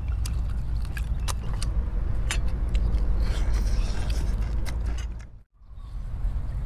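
Wind rumbling on the microphone, with scattered sharp clicks and crackles over it. The sound cuts out briefly a little over five seconds in, then the rumble returns.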